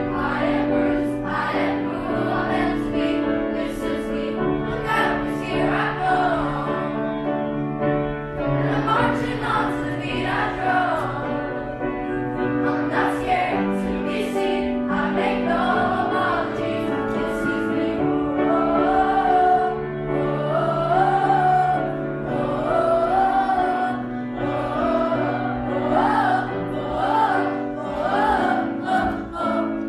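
A song: singing voices with a wavering melody over sustained instrumental chords.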